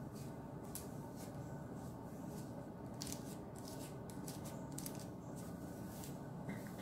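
A plastic-bristled detangling brush raking through wet curly hair, giving a run of short, irregular swishing strokes, one a little longer about three seconds in. A steady low background hum runs underneath.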